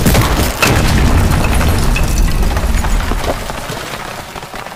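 Designed cinematic boom effect. A deep rumbling blast with scattered crackles hits about half a second in and then fades away steadily over the next few seconds.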